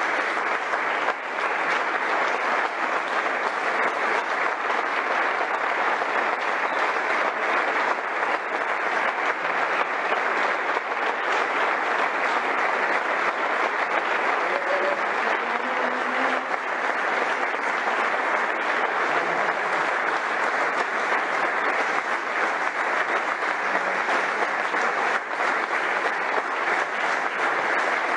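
Sustained applause from an audience, many hands clapping steadily at an even level.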